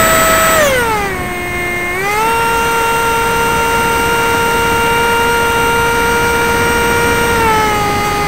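RC model plane's motor and propeller whining steadily, heard from a camera mounted on its tail. The pitch falls about half a second in as the throttle eases, rises again about two seconds in and holds, then dips slightly near the end.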